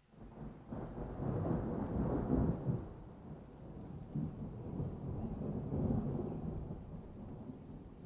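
A roll of thunder: a low rumble that rises out of near silence at the start, is loudest over the next couple of seconds, swells once more around the middle, then slowly dies away.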